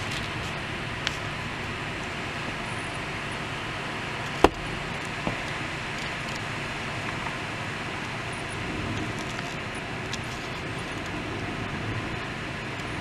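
Thunderstorm rain and gusting wind through trees: a steady rushing hiss. It is broken by a few sharp ticks, the loudest about four and a half seconds in.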